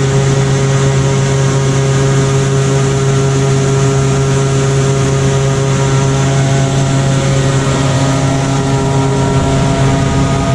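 Harvest machinery's engine running at a steady drone, with a constant low hum and no change in speed.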